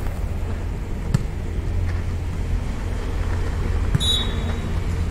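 Volleyball play over a steady low rumble: a sharp hit of the ball about a second in, then a short referee's whistle blast about four seconds in.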